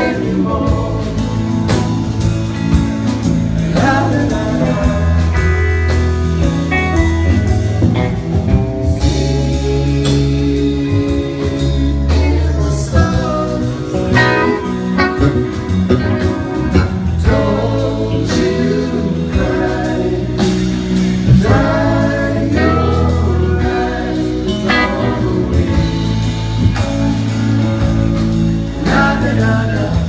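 Live rock band playing, with a woman singing lead over electric guitar and bass guitar and a steady beat.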